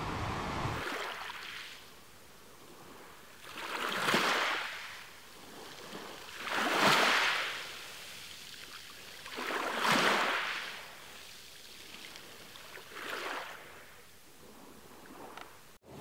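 Small sea waves washing in, about four swells some three seconds apart, each a hiss that rises and fades away. The second one is the loudest. A steady surf noise cuts off about a second in, and another starts right at the end.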